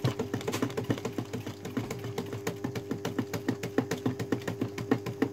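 Steady electrical hum with a fast, even ticking running through it, about eight clicks a second.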